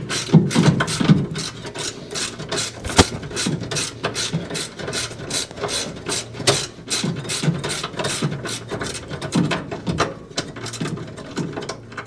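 Ratcheting wrench clicking in short strokes, about three to four clicks a second, as a bolt on the Speed Queen washer's brake assembly is tightened.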